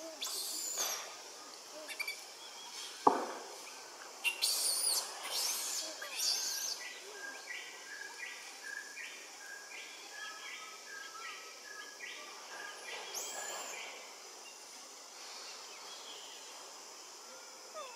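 Forest birds calling over a steady high hiss, with one sharp snap about three seconds in and a run of short, evenly repeated notes, about two a second, through the middle.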